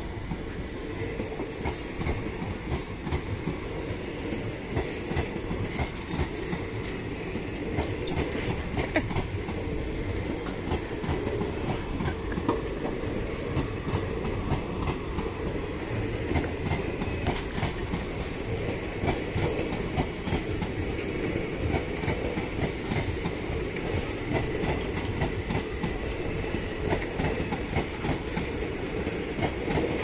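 Passenger express train rolling along the rails, a continuous rumble with many short irregular clicks from the wheels over the track.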